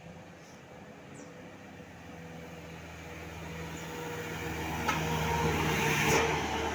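A bus approaching and passing close by, its diesel engine and road noise growing louder to a peak about six seconds in, then starting to fade.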